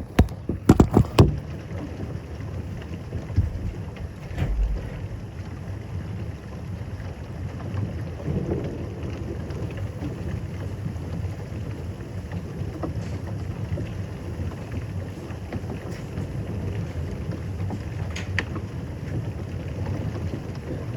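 Steady rain and wind of a thunderstorm, heard as a low rumbling noise on a phone microphone, with a few sharp knocks in the first second or so.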